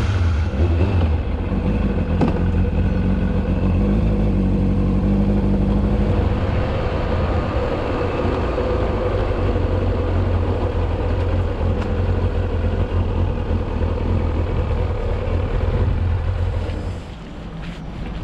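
Motorcycle engine running as the bike is ridden, heard close up from a camera mounted on the bike, steady and loud throughout. About a second before the end it drops to a quieter note as the bike slows.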